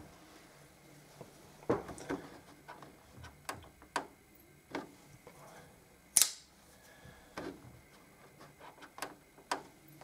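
Scattered small clicks and taps as a black folding pocket knife is handled and its blade opened, the loudest a single sharp click about six seconds in.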